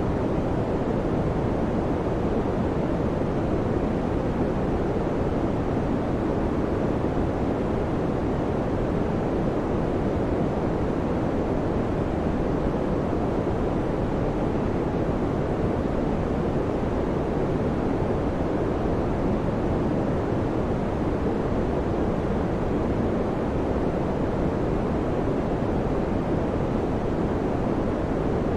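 Electric fan running steadily, a constant low rushing whoosh of moving air with no changes.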